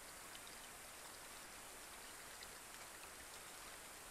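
Faint light rain falling on pond water: a steady soft hiss with many small scattered drop ticks.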